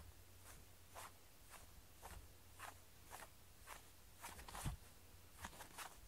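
Faint light taps and rustles of a feather cat-wand toy being flicked across a foam floor mat, about two a second, with one louder thump a little before the end.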